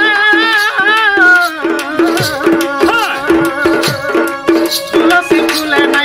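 Two male voices singing a Sambalpuri danda folk song over amplified accompaniment: a long, wavering sung line fades out about a second and a half in, and a quick repeated note figure with drum and rattle percussion carries on.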